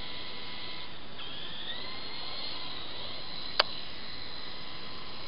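Small electric motor of a remote-control toy helicopter whining high and steady, its pitch rising a little about a second in. A single sharp click comes a little after the middle.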